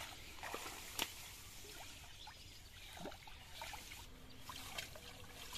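Small irregular splashes and trickles of water as hands feel about in shallow muddy water among water plants, with a sharper splash about a second in.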